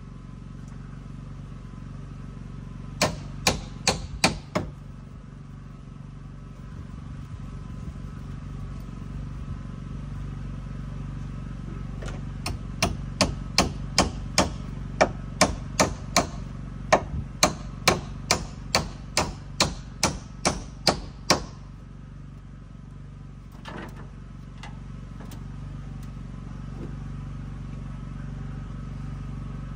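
Hand hammer striking into timber framing: a short run of about five blows, then a longer, even run of some twenty blows at about two a second.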